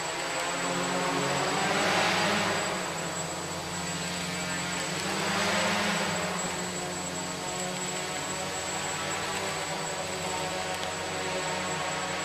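Electric motor and propeller of a small radio-controlled FPV model aircraft, a steady pitched whine that swells twice as the model comes close, about two seconds in and again about six seconds in.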